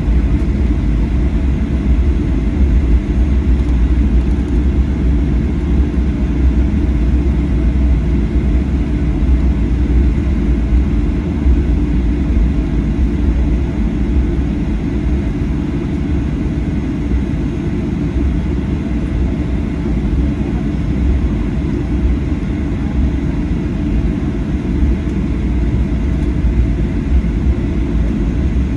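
Steady low rumble of cabin noise inside a Boeing 737-800 airliner, even throughout with no sudden sounds.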